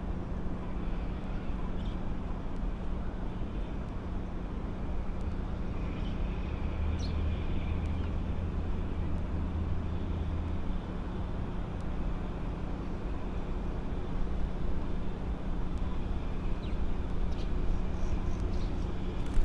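Steady low outdoor rumble with a constant hum, growing slightly louder over the last few seconds as a distant EH200 electric freight locomotive running light approaches along the line, mixed with background traffic noise.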